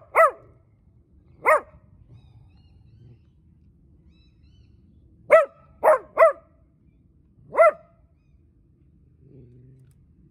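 Small brown dachshund barking at an approaching person in short single barks: one at the start and another about a second later, then after a pause of about four seconds a quick run of three and a last bark a second after.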